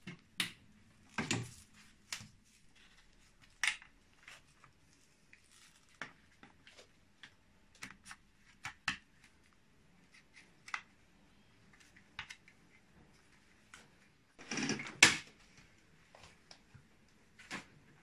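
Scattered plastic clicks and knocks from the hose, hose connector and spray nozzle of a Thomas washing vacuum cleaner being fitted and handled, with the vacuum switched off. The loudest is a short clatter about fifteen seconds in.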